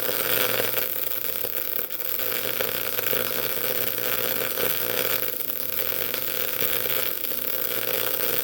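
MIG welding arc running steadily on 3/8-inch flat bar, a continuous crackling sizzle with a faint steady hum, cutting off abruptly near the end as the weld stops.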